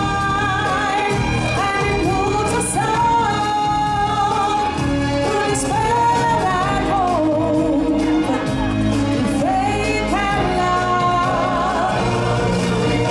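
A song with singing voices over music, the voices moving in melodic lines above a steady low accompaniment.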